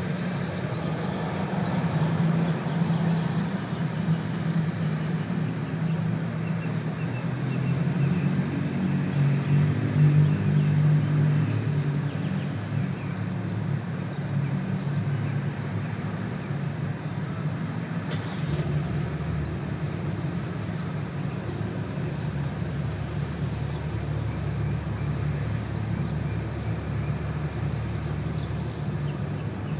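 Car driving in city traffic: a steady hum of engine and tyre noise on the road, swelling louder around ten seconds in. A brief knock comes at about eighteen seconds, after which a deeper rumble carries on.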